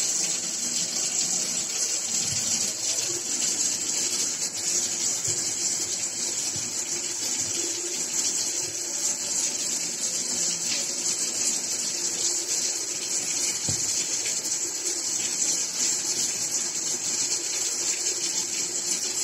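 A steady, high hiss that holds at an even level throughout, rushing like running water.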